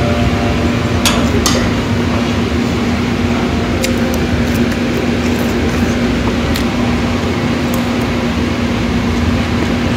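Steady mechanical hum and rushing room noise, with a few light clicks of utensils on dishes.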